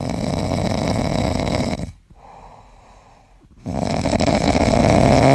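Loud snoring: two long snores of about two seconds each, with a quieter breath between them.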